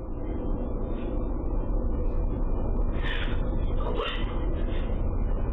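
Doorbell camera's night-time audio: a steady low rumbling noise with faint high chirps throughout, and a woman's voice crying out briefly about three seconds in and again about four seconds in.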